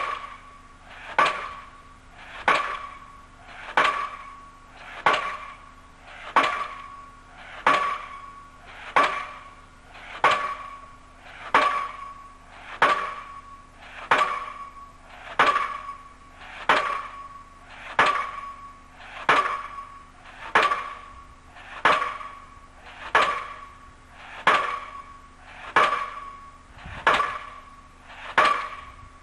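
Diesel pile hammer on a crane-mounted leader driving a foundation pile, a sharp bang with a short ringing tail about every 1.3 seconds in a steady rhythm.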